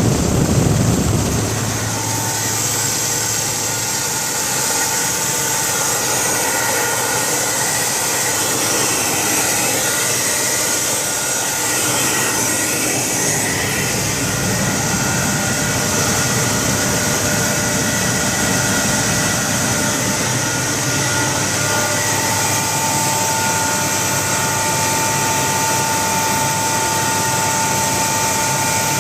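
A 40 hp rotary screw air compressor running steadily: a constant mechanical drone with several steady whining tones. It is a little louder for the first second or two, and a clearer high whine comes in about three quarters of the way through.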